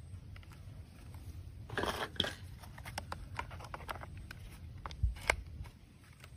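Plastic parts of a toy AK-47 rifle being handled and the stock fitted on: scattered light clicks and rattles, a brief rustle about two seconds in, and two sharper clicks about five seconds in as the stock goes on.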